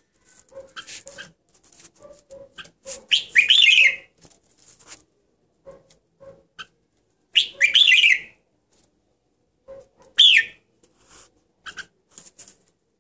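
Red-whiskered bulbul singing three short, loud warbling phrases a few seconds apart, with soft chirps and clicks in between.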